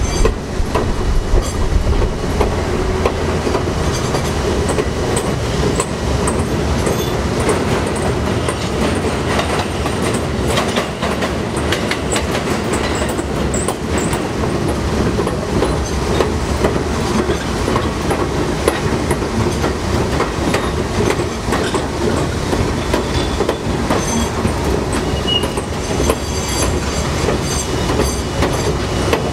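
R42 subway cars running on elevated track, heard from the gap between cars: steady wheel and track noise with rattling clicks over the rails and occasional high wheel squeals.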